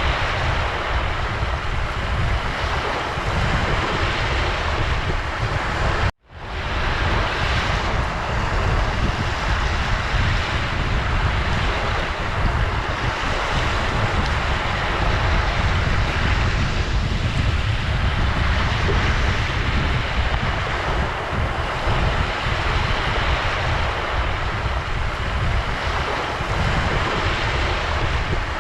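Ocean surf washing steadily, a continuous rushing noise with a heavy low rumble. About six seconds in it cuts out for an instant and fades back in.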